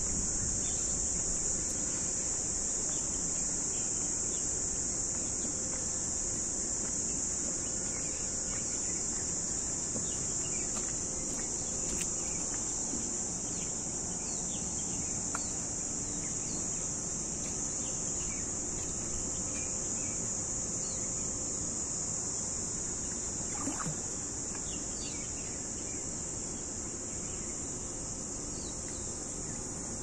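Steady, high-pitched chorus of insects, holding one even pitch throughout, over a low background rumble, with a few faint short chirps scattered through it.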